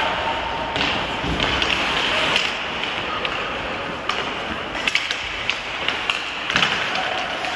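Ice hockey play: skate blades scraping across the ice, with several sharp clacks of sticks on the puck and ice.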